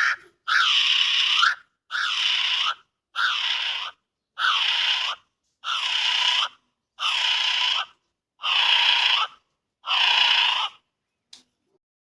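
Kiwi calling: a series of eight shrill calls, each just under a second long and rising then falling in pitch, evenly spaced about a second and a quarter apart. The calls stop near the end, and a brief click follows.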